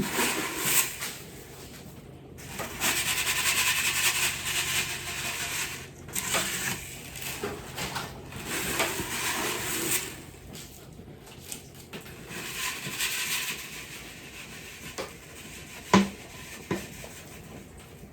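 Bone meal being poured and shaken out over raised-bed soil: a rustling hiss in several bursts a few seconds long. Two sharp knocks near the end.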